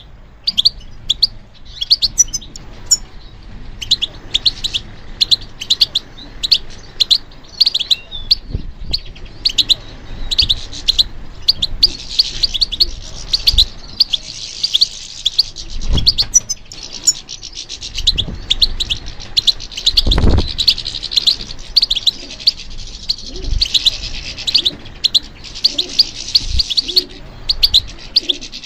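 European goldfinch singing: a long run of rapid, tinkling twitters and trills. A few dull low thumps sound under the song, the strongest about two-thirds of the way through.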